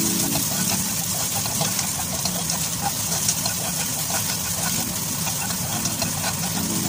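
Chopped ginger, garlic, scallion and dried chilies sizzling in hot oil in a wok as they are stirred with a spatula, over a steady low hum.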